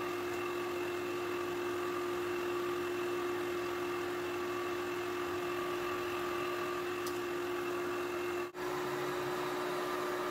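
Drill press running together with its attached dust extractor: a steady machine drone with a constant hum. It breaks off for an instant about eight and a half seconds in and then carries on the same.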